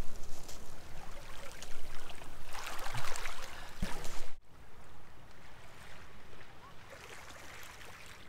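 Small waves lapping and washing over a pebble shore, with a light crackle of water among the stones. The sound is louder in the first half, then breaks off about halfway through and carries on more quietly.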